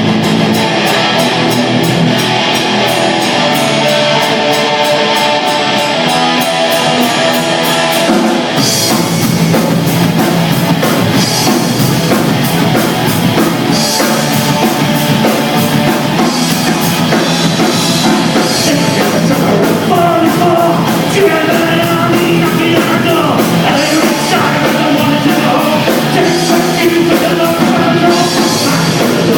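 Loud rock band playing with electric guitars, and the drum kit coming in with cymbal crashes about eight and a half seconds in.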